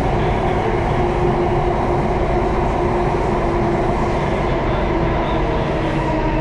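Singapore MRT Circle Line train running at speed through a tunnel, heard from inside the carriage: a steady, loud rumble with a constant whine over it.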